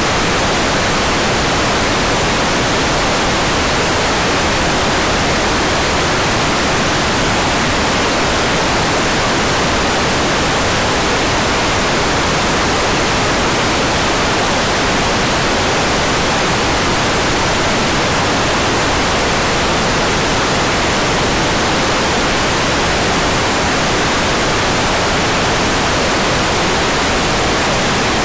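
Hair dryer running steadily: an even, unchanging rush of blown air with no rise or fall in pitch or loudness.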